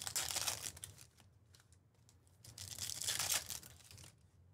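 Foil trading-card pack wrapper being torn open and crinkled by hand, in two short crackling bursts: one at the start and another about three seconds in.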